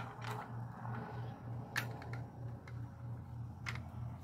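A few light clicks and taps from handling the catch and gear close to the microphone, over a faint low hum that pulses about four times a second.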